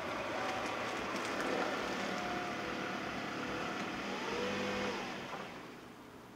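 Silver Toyota RAV4 pulling slowly into a driveway and coming to a stop, its engine running steadily, the sound dying away about five seconds in.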